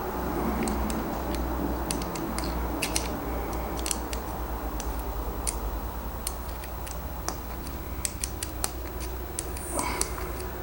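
Scattered small metal clicks and scrapes as the scale screws of a Rick Hinderer XM-18 folding knife are loosened and the knife is handled, over a steady low hum.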